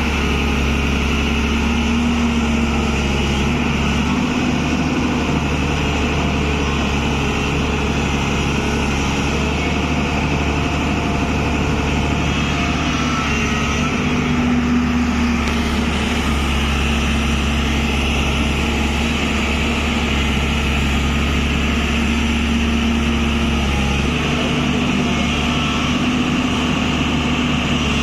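Tata Hitachi excavator's diesel engine running steadily at an even pitch.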